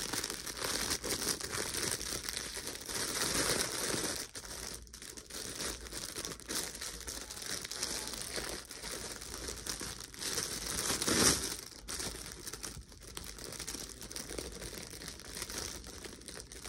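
Clear plastic bag crinkling and rustling continuously as a doll is unwrapped from it by hand, with many small crackles and one louder crackle about eleven seconds in.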